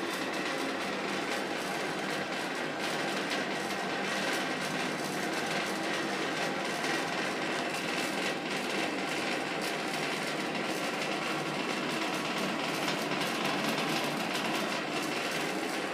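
Mitsubishi V-18ZS2 duct ventilation fan running with an abnormal noise: a steady whir with a fast, rough rattle. The cause of the noise is unknown.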